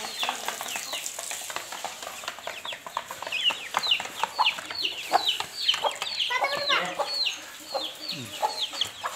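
Young chickens peeping over and over in short, falling calls, several a second, with one lower, fuller call about six and a half seconds in. Under the calls is a light rustle of birds pecking through grain feed in a tray.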